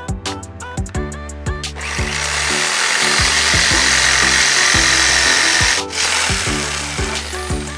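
A power tool cutting wood runs loudly for about four seconds, starting about two seconds in and stopping suddenly near six seconds, over background music.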